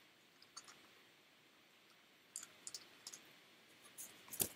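Small hard plastic toy being handled and set down: a few faint clicks and taps, with a quick cluster of louder clicks near the end.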